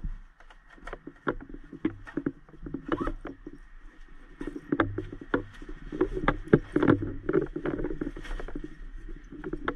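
Hands rummaging in the outside pocket of a nylon medical bag and handling the gear inside: an irregular run of clicks, knocks and rustling.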